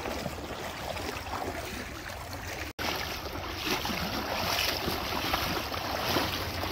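Water splashing and sloshing around legs wading through a shallow river in waders, an irregular run of small splashes. After a brief break a little under three seconds in, the splashing is louder and hissier.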